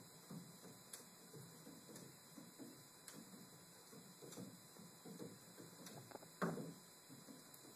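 Cat exercise wheel turning under a trotting Bengal kitten: faint, soft, rhythmic thuds of paws on the running track, about three a second, with one louder thump about six and a half seconds in.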